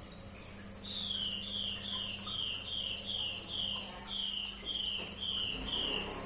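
A bird calling a quick series of about eleven short, high whistled notes, each sliding downward, roughly two a second. A steady low hum runs underneath.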